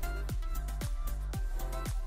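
Background music with a steady electronic beat: a kick drum about twice a second over sustained chords and bass.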